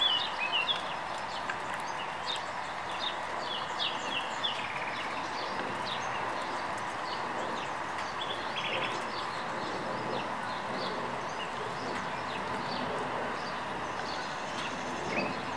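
Several birds chirping and singing in short phrases over the steady hiss of falling rain.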